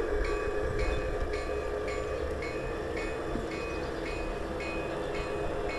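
Garden-scale model train running past, a long string of tank cars rolling on outdoor track. There is a steady running hum with a light, regular clicking about twice a second.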